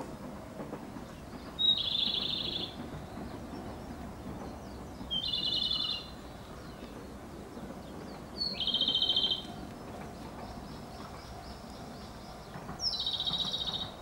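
Japanese robin (komadori) singing: four short song phrases a few seconds apart, each a fast rattling trill about a second long.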